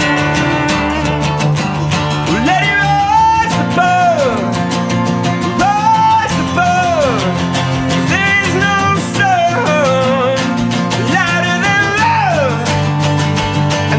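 Acoustic rock band performance: guitars strumming steady chords under wordless sung phrases that slide up and down in pitch, repeated every couple of seconds.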